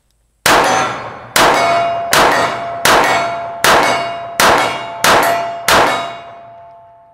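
Eight .45 ACP shots from a Springfield Armory Champion Operator 1911 pistol, fired in about five seconds, each answered by the ring of a steel target being hit; the ringing fades over a second or so after the last shot. All eight rounds fire in a row, which the shooter takes as the sign that the light hammer strikes are cured.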